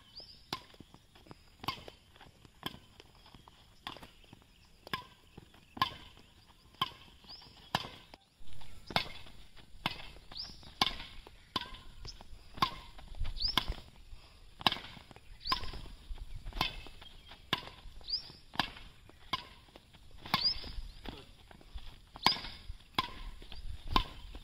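Badminton racket strings striking shuttlecocks over and over, a sharp crack about once a second.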